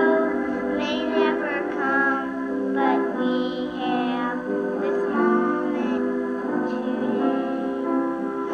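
A song with a singing voice holding long, wavering notes over sustained instrumental chords.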